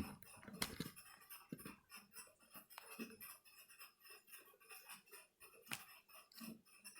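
Faint, scattered clicks and scratches of hands handling laptop parts, with a few sharper taps about half a second in and again near six seconds.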